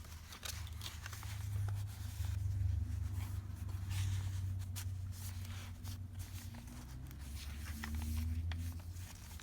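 Paper rustling and crinkling as the pages, pockets and tags of a thick handmade junk journal are handled and turned, with scattered soft clicks, over a steady low hum.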